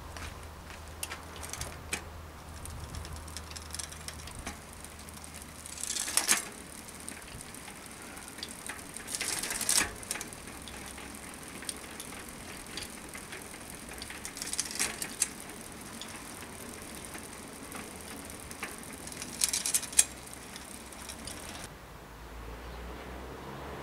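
Bicycle drivetrain turned by hand: the rear hub's freehub pawls tick fast and steadily as the wheel spins. Four louder rattles of chain over the sprockets and chainrings come a few seconds apart, and the ticking stops near the end.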